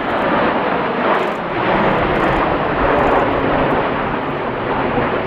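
Steady, loud jet noise from nine BAE Hawk T1 jet trainers, each with a single Adour turbofan, flying overhead in close formation.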